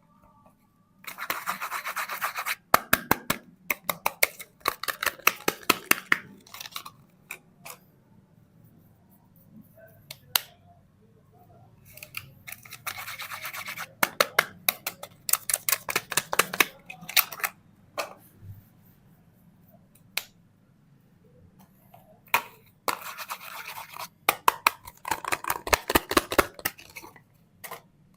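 Bars of soap being opened and handled: bursts of rapid crackling scrapes about a second or two long, with sharp single clicks in between, several times over.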